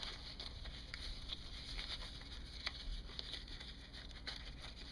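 Faint rustling and light ticks of a fabric rain cover and headphone cord being handled and tucked into place.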